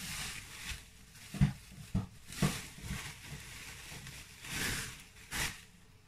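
Plastic wrapping rustling and crinkling as a glass jar is unwrapped by hand, with a few sharp clicks, the loudest about a second and a half in.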